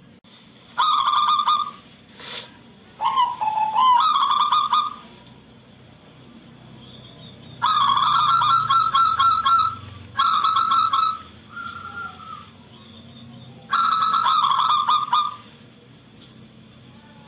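Zebra dove (perkutut) cooing: several phrases of rapid staccato notes, each lasting one to two seconds, with pauses between them. The song is shrill.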